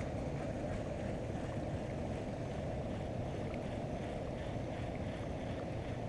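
Steady low wind and water noise, even throughout with no distinct splash or knock.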